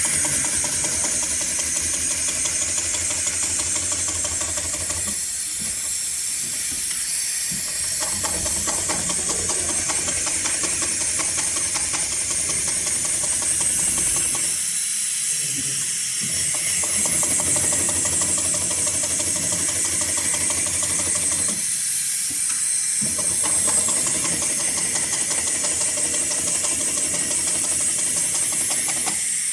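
Heavy-duty triple-feed straight-stitch sewing machine sewing thick polyester or nylon sling webbing in several runs, stopping briefly three times, under a loud steady hiss.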